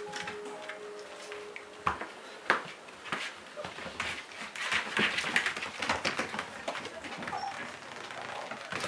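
Old English Sheepdog puppies playing and scuffling on a carpeted floor. A thin, steady high tone is held for about the first two seconds, then come sharp knocks and busy scrabbling, busiest around the middle.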